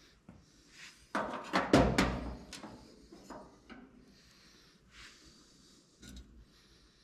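A quick clatter of knocks and clicks from things being handled, starting about a second in and loudest near two seconds, followed by a few lighter taps and rustles.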